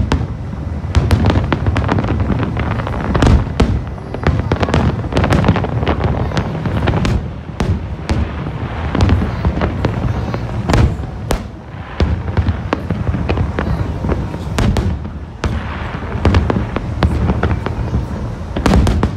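Aerial fireworks display: shells bursting in quick, continuous succession, a dense run of sharp bangs several a second over a steady low rumble.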